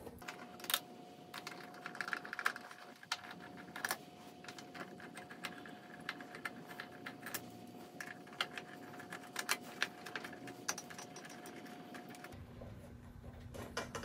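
Faint, irregular clicks and ticks of a hand screwdriver backing small screws out of a 3D printer power supply's acrylic switch housing. The screws and the housing parts are handled as they come loose. A faint steady whine sits underneath and stops near the end.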